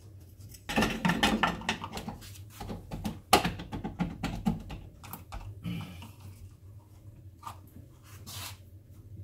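Metal parts of a small electric motor clicking and knocking as it is fitted back together by hand after a bearing change. The clicks come thick and fast at first, with one sharp knock about three seconds in, then thin out.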